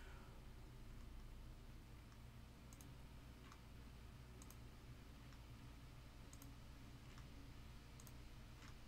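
Faint clicks of a computer mouse button, about one a second, over a low steady hum.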